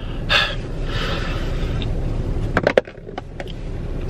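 Steady low rumble in a car cabin, with a brief noisy burst near the start and a quick cluster of clicks and knocks a little past halfway, the last knock the loudest.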